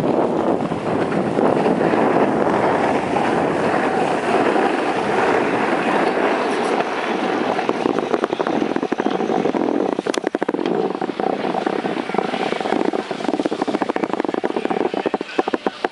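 Steady rushing noise of a downhill ski run: wind buffeting the microphone of a hand-held camera and skis hissing over the snow. In the second half it breaks up into sharp crackling scrapes.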